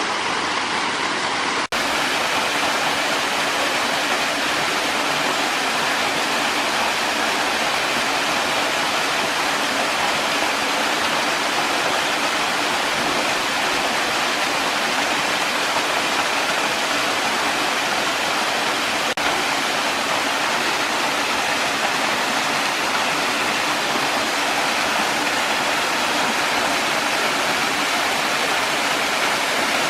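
Waterfall on a small forest creek: a steady, unbroken rush of falling water, with a brief dropout about two seconds in.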